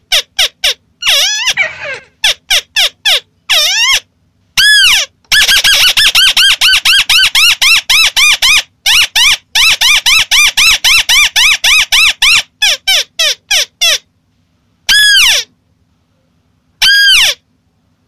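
White-browed crake calls used as a lure. They come as fast runs of short, harsh, arched notes, about four a second, for several seconds at a time, with single longer calls between, and each run breaks off into sudden silence.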